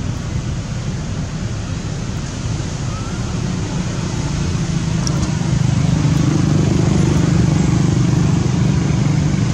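A motor vehicle's engine running steadily, growing louder a little past halfway.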